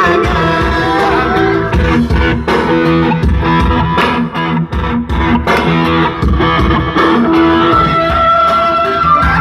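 Music with electric guitar, bass and a steady beat.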